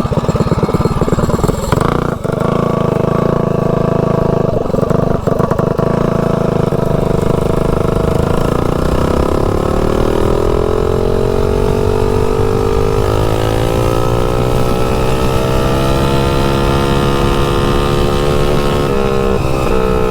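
Tillotson 225cc single-cylinder engine of a mini bike running under way through an open trumpet header pipe. About eight seconds in it pulls up steadily in pitch as the bike accelerates, then drops back briefly near the end.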